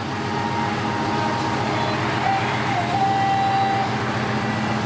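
The 1967 Chevrolet Impala SS's V8 idling steadily through its redone exhaust.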